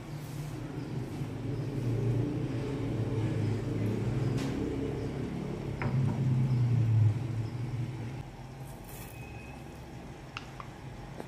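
A low, uneven rumble that swells in the middle and drops away about eight seconds in, with a few light clicks and taps.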